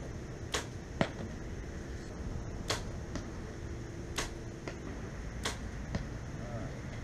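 Compound bow with a 65-pound draw being shot: several sharp snaps of the string on release, each answered about half a second later by the knock of an arrow hitting the target.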